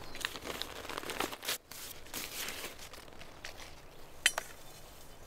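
Faint rustling and crinkling handling noises, with one sharp click about four seconds in.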